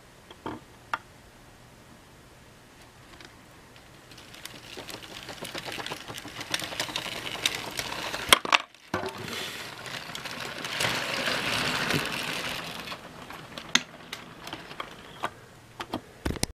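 HO scale model train running on the track: a small electric motor whirring under a fast rattle of wheels on rail. It builds up about four seconds in and falls away about four seconds before the end, with a few separate sharp clicks.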